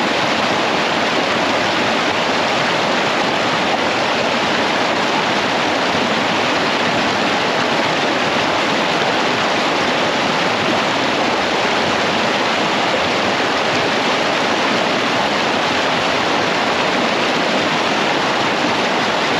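Rushing creek water pouring over rocks in shallow rapids close by, a loud, steady rush of white water.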